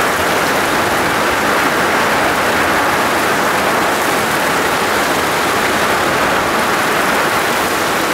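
Heavy downpour: rain bucketing down onto roofs and ground in a loud, steady, unbroken hiss.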